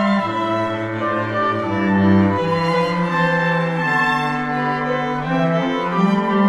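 A chamber septet of flute, clarinet, bass clarinet, two violins, viola and cello playing slow, sustained chords, the cello holding the low line.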